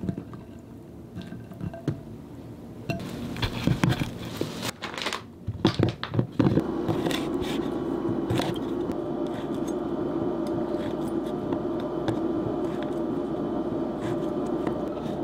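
Hands handling frozen shrimp in a glass bowl of water, with knocks and clinks. About six seconds in, a steady hum starts, and a chef's knife slices sausages into rounds on a wooden cutting board with light taps.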